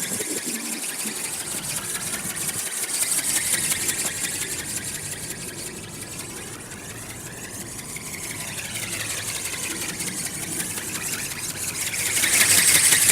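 RC ornithopter in flight: its brushless motor and reduction gears whirring as they drive the flapping wings, with a fine rapid buzz. It fades as the aircraft moves away, quietest about halfway through, and grows louder again near the end.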